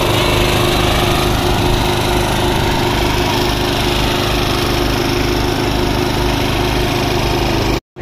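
Small asphalt paver's engine running steadily at close range. It cuts off abruptly just before the end.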